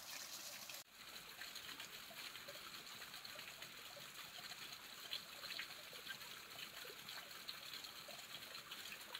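Running water trickling steadily, with a brief break just under a second in.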